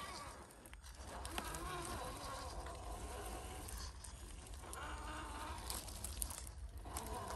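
Radio-controlled scale crawler's small electric motor and gearbox whining as it crawls over logs. The pitch rises and falls with the throttle, with two short pauses.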